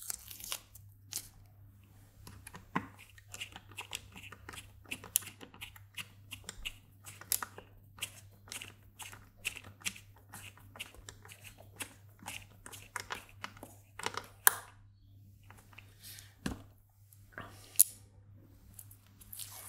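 Quiet, irregular clicks, ticks and scrapes as a small hex-bit screwdriver starts socket screws into hex nuts and fingers handle the stacked acrylic panels, with a few sharper clicks near the end. A faint steady low hum sits underneath.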